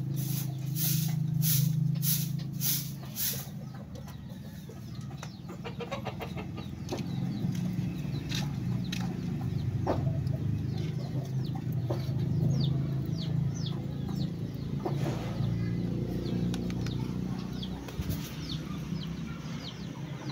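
Chickens clucking over a steady low hum, with a stick broom sweeping concrete in regular strokes, about two a second, for the first few seconds.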